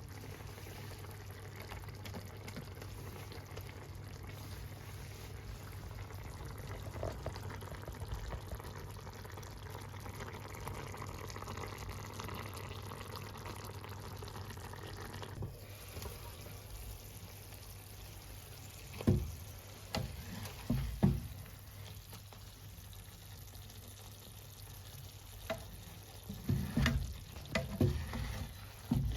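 Food sizzling as it fries in a pan, a steady hiss that fades about halfway through; in the last third a utensil knocks against the pan several times as the food is stirred.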